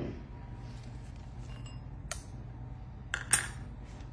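Light dishware clinks as cooked bacon bits are tipped from a small ceramic ramekin into a glass bowl: one sharp clink about two seconds in and a louder clatter a little after three seconds.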